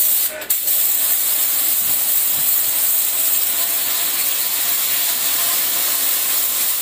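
High-pressure water jet from a Ballorex KS-7 2300 W electric pressure washer blasting against a concrete wall. It makes a loud, steady hiss, broken by a short dip about half a second in.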